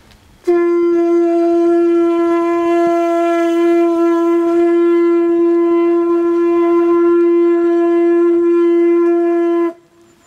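A single long note blown on a ritual horn, held at one steady pitch with a bright, reedy edge for about nine seconds, starting sharply and cutting off just before the end.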